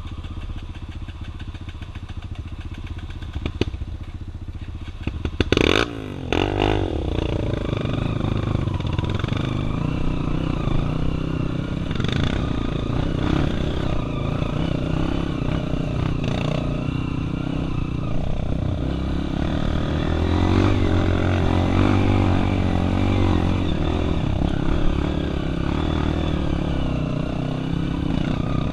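Single-cylinder four-stroke trail motorcycles running and revving on a dirt trail, with a sharp clatter about five and a half seconds in.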